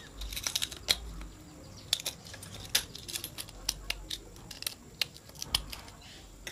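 Small screwdriver poking and scraping inside the metal base of a broken-open light bulb, chipping out the remaining glass: irregular sharp clicks and scrapes of metal on glass, a quick run of them in the first second, then scattered ones.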